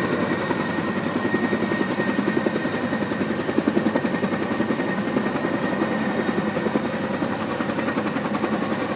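Heavy-lift helicopter hovering close by, its rotor blades beating in a fast, steady chop with a thin high tone running over it.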